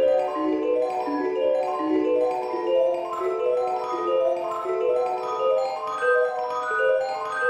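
Background music: a brisk tune of quick, short pitched notes.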